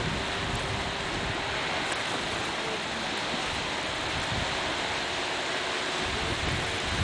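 Small sea waves breaking and washing on the shore, a steady hiss, with a faint drone of distant watercraft engines underneath.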